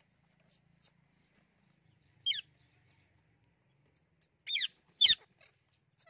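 Indian ringneck parakeet giving three short, shrill squawks: one about two seconds in, then two close together near the end, the last the loudest.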